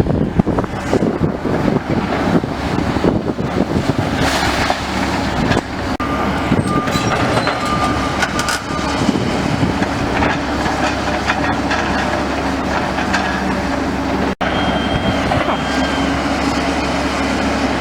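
Excavator demolishing a building: dense crunching and clattering of debris for the first several seconds, then the machine's engine running steadily, with a short beep repeating now and then.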